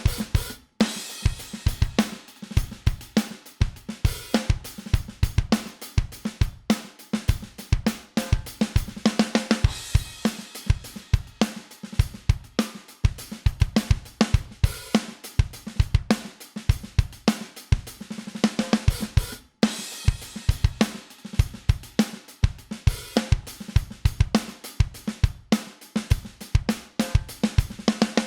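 A drum kit groove on the drum bus, with kick, snare, hi-hats and cymbals, played through a vari-mu tube compressor plugin. The groove stops briefly near the start and again about 19 seconds in, where the loop starts over.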